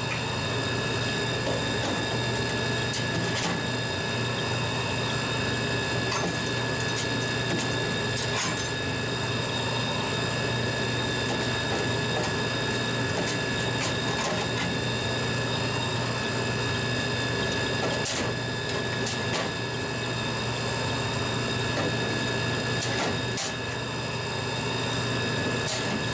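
Dixie Narco 240/138-6 Coke vending machine running with a steady mechanical hum and whine, and a few sharp clicks scattered through it.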